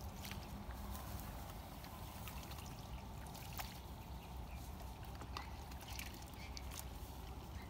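Several dogs and puppies eating wet food from plastic bowls: scattered small clicks and wet lapping over a steady low rumble.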